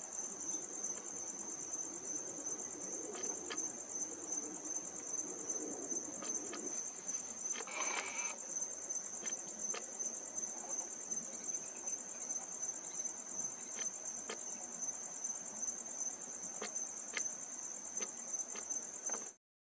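Crickets trilling in a steady, continuous high-pitched chorus, with faint scattered ticks and a brief sound about eight seconds in; the chorus cuts off abruptly just before the end.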